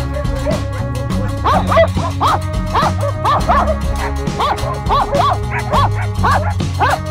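West Siberian laikas barking at a bear they are chasing: repeated sharp barks that settle into about two a second after the first second and a half. Background music plays underneath.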